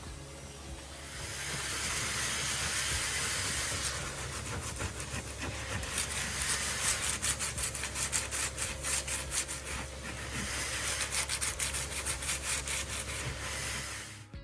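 Granite countertop being polished, the polishing rubbed back and forth over the stone: a steady rasping that starts about a second in, with quick back-and-forth strokes through the middle, stopping just at the end.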